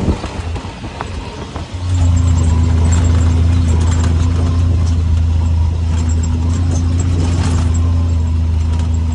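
Diesel engine of heavy earth-moving equipment running. About two seconds in it steps up to a loud, steady drone and holds there.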